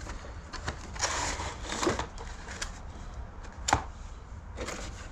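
Handling noise from a box of PC parts and its packaging being moved: scattered clicks and rustling, with one sharp knock about three and a half seconds in.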